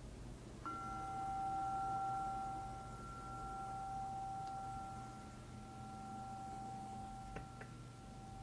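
A meditation bell struck once, a little under a second in, ringing on with a clear, steady tone that fades slowly. It marks the start of the silent centering prayer period.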